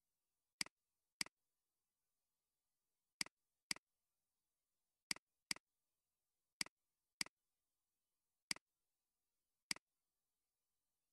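Computer mouse clicking: ten sharp, short clicks, mostly in pairs about half a second apart, spread through otherwise near-silent room tone.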